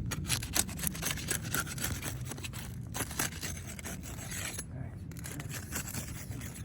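Repeated scraping and rubbing on roof shingles as their sealant strips are broken loose.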